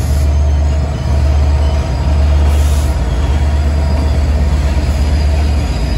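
Diesel locomotive engine running with a steady, loud low drone.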